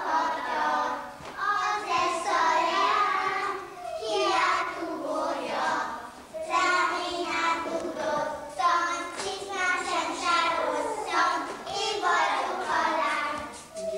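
Young children singing a ring-game song together, in short phrases with brief breaks between them.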